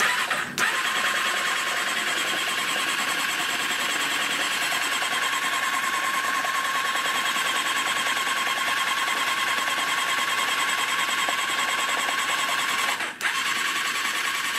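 1995 Honda CBR600F3's inline-four engine cranking over on its electric starter with the spark plugs out and no ignition coils fitted. It spins freely without firing, a steady whirr that breaks off briefly near the end and then resumes. It spits out water that had got down the carburettors into the cylinders; it turns over, so the engine is not seized.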